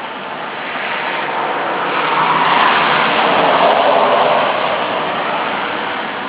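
A car passing on a wet road, its tyres hissing through the water: the sound swells, peaks midway with a slight drop in pitch, then fades away.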